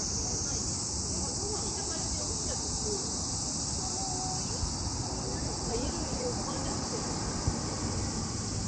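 Insects chirring in a steady, unbroken high drone, over a low rumble.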